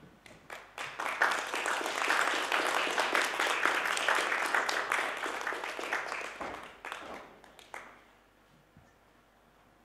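Audience applauding in a theatre, starting about a second in, swelling, then dying away after about seven seconds.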